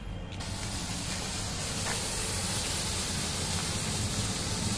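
Standard Fireworks 'Electric Stones' ground firework catching about half a second in and spouting sparks with a steady hiss.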